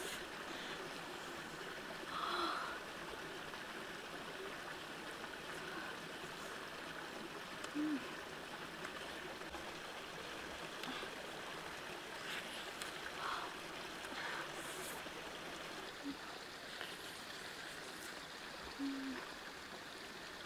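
Steady rush of a stream running over rocks, with a few short, low tones rising above it now and then.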